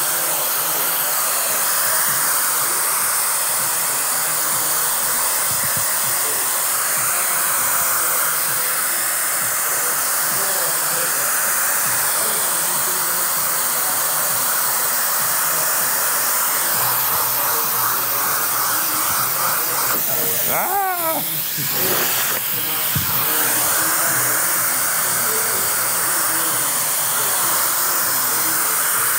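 Stylecraft SC Cosmic blow dryer with a diffuser attachment blowing steadily, a constant rush of air and motor, with a short break in the sound about two-thirds of the way through.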